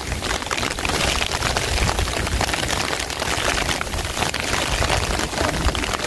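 Steady hiss of rain and wind, with wind rumbling on the microphone.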